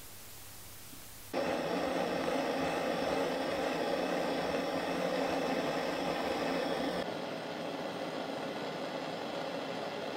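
Jeweller's gas torch flame roaring steadily while it heats a silver ring for soldering. It comes on abruptly about a second in and turns duller around two-thirds of the way through.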